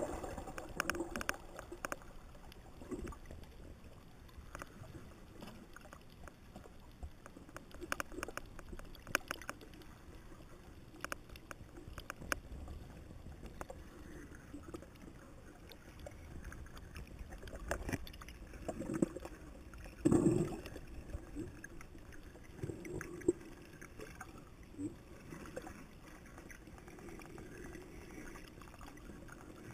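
Muffled underwater ambience picked up by a camera below the surface: a faint steady wash with scattered sharp clicks and crackles, and two louder low swells of water noise about two-thirds of the way through.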